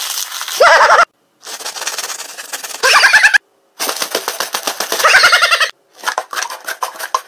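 Rapid runs of clicking and crackling, broken off by abrupt cuts every second or two, three of them ending in a short loud vocal sound. Near the end the clicks are plastic speed-stacking cups being stacked quickly.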